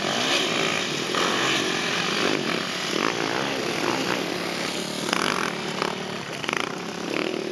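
Dirt bike engines revving as enduro motorcycles race past, the pitch rising and falling with the throttle.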